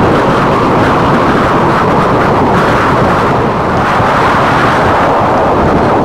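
Severe wind gusts of about 80 to 90 km/h blowing hard across the microphone: a loud, steady rushing noise with no let-up.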